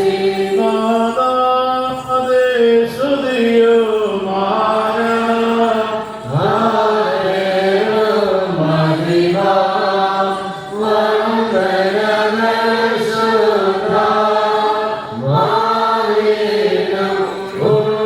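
Liturgical chanting in the Malankara Orthodox tradition: voices sing long, held phrases on a few notes, with brief breath pauses every few seconds.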